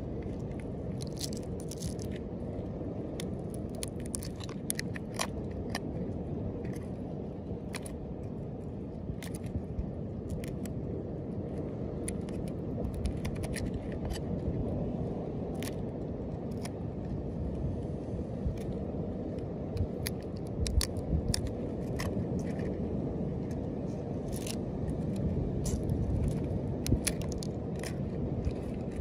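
A small scraper scratching dirt off a tortoise's shell: irregular sharp clicks and scratches over a steady low rumble.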